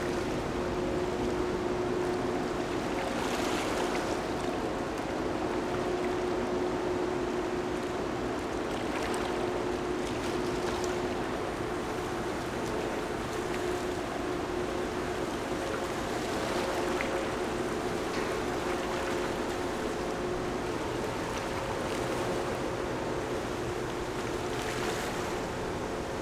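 Steady hum from a passing Evergreen container ship's machinery, with a few held tones, over the wash of river water along the bank.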